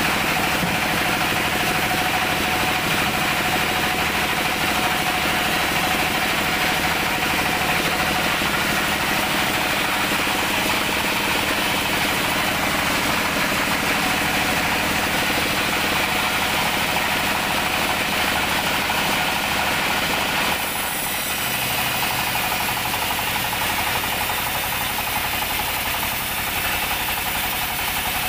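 Engine-driven band sawmill running steadily, the engine knocking evenly under a whir of machinery; the sound changes slightly about twenty seconds in.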